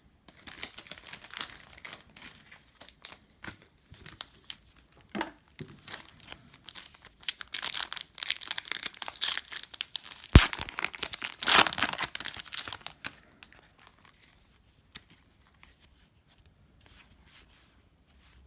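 A plastic trading-card pack wrapper being torn open and crinkled, with a sharp snap about ten seconds in. The crinkling stops about thirteen seconds in.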